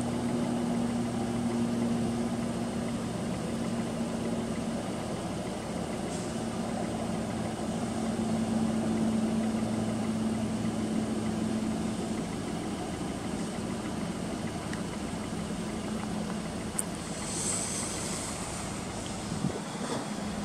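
Steady low engine drone with a held hum, like a motor idling. A short high hiss comes about three quarters of the way through.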